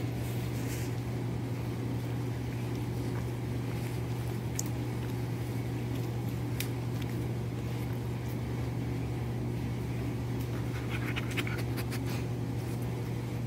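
A young German Shepherd chewing raw chicken, with scattered sharp crunches and clicks that come more often near the end. Under it runs a steady low mechanical hum.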